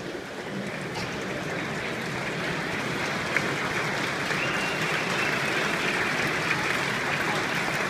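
Large stadium crowd applauding, the clapping swelling gradually and then holding steady.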